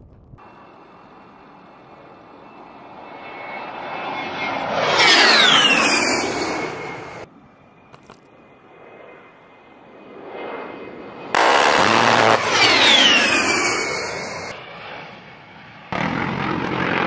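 A-10 Thunderbolt II's twin TF34 turbofan engines whining in two low flybys. Each pass swells to a peak as the high whine sweeps down in pitch while the jet goes by, then is cut off abruptly. A short burst of noise follows near the end.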